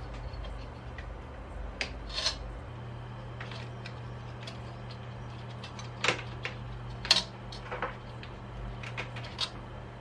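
Scattered small clicks and scrapes of a Noctua NF-A15 fan's steel wire clips and plastic frame being pressed onto the fins of an NH-D15 CPU cooler's heatsink, the sharpest clicks about 2, 6 and 7 seconds in, over a steady low hum.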